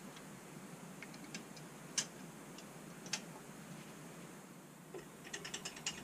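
Hand ratchet clicking as bolts are worked on the engine block's main caps: a few scattered metallic clicks and taps, then a quick run of about eight clicks near the end.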